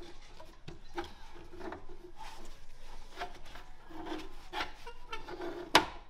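Silicone coupler hose rubbing and scraping against the throttle body pipe as a gloved hand twists and works it into place. It comes in repeated short strokes, with one sharp click near the end.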